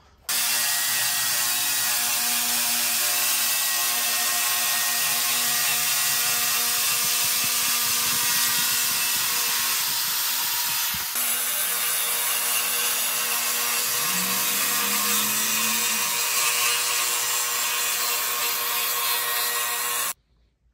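Festool track saw running and ripping along its guide rail to cut a straight edge on a long cherry board, a steady motor whine mixed with blade-cutting noise. It cuts off suddenly near the end.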